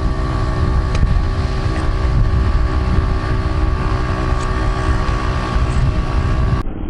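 Motorboat's outboard engine running steadily out on the river, a constant hum over a low rumble, with wind buffeting the microphone.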